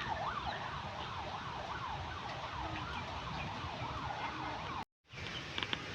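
A siren in fast yelp mode, its pitch sweeping up and down about three times a second over background noise. It cuts off abruptly near the end, and a few short clicks follow.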